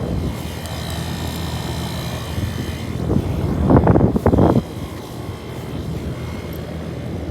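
Outdoor air-conditioning condenser unit running with a steady low hum. A short, louder rustling burst comes about four seconds in.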